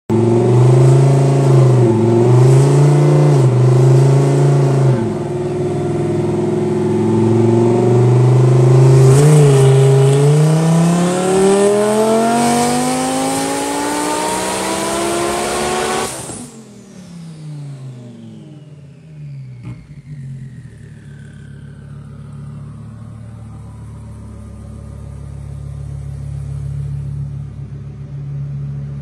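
Twin-turbo Audi R8 V10 running on a chassis dyno. After a few throttle blips it makes a full-throttle pull, its note rising steadily for about six seconds until the throttle is cut suddenly. The pitch then slides down as the engine and rollers coast down, and it settles into a low idle.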